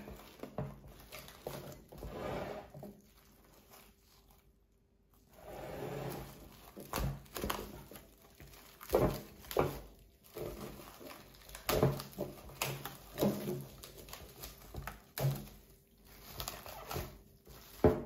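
Plastic wrap crinkling and rustling in irregular bursts of sharp crackles as it is stretched and pressed around the rim of a glass bowl, with a brief silent gap about four seconds in.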